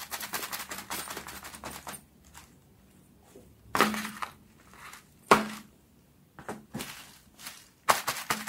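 Small plastic fidget toys being handled: rapid clicking and tapping, with two sharper knocks in a quieter stretch in the middle.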